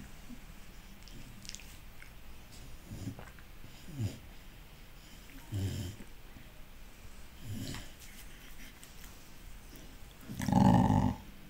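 Two American Staffordshire terriers mouthing each other in play, making short breathy grunts every second or two, then a louder growl lasting under a second near the end.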